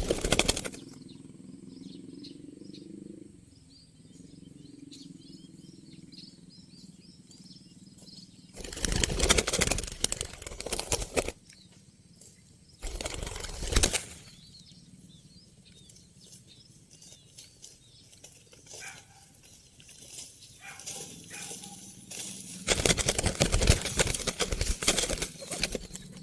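Spotted dove (tekukur) beating its wings in four loud bursts of flapping, the longest near the end, as it struggles after being caught in the trap. Faint small-bird chirps come in the quiet gaps between the bursts.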